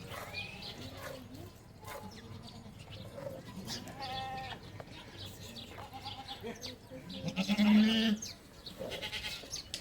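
Goats bleating: several separate calls, the loudest and longest about three-quarters of the way through.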